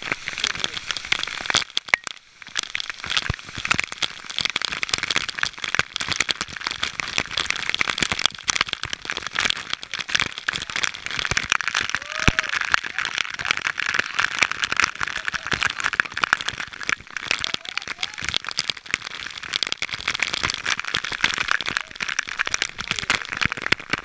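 Waterfall spray spattering against an action camera's housing, a dense, steady crackle over the rush of falling water, briefly dropping away about two seconds in.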